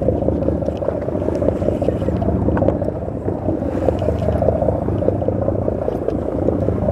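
A sportfishing boat's engine running with a steady low rumble.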